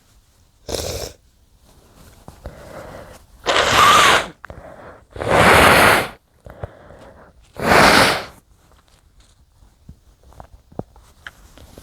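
Muffled sneezes from one person: a smaller sneeze about a second in, then three loud sneezes in quick succession, with quieter breathing drawn in between.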